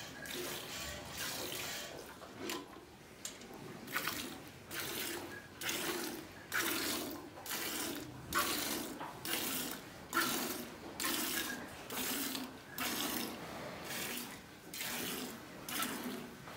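Cow being milked by hand: jets of milk squirting rhythmically into a steel pail that holds milk, about two squirts a second.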